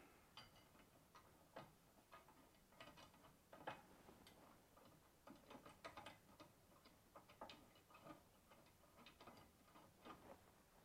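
Faint, irregular small clicks and ticks of screws being started by hand into the metal bracket of a monitor mount.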